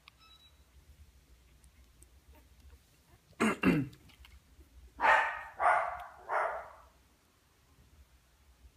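A dog barking: two quick sharp barks about three and a half seconds in, then three longer barks spaced under a second apart.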